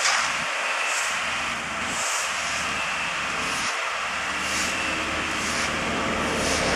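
Steady street noise of waiting traffic and running engines, an even hiss with a low engine drone that grows fuller about four seconds in.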